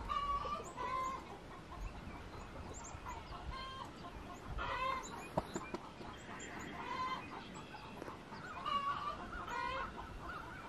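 Hens clucking and cackling in a chicken coop, calls coming in repeated bouts: the commotion hens raise around laying their eggs.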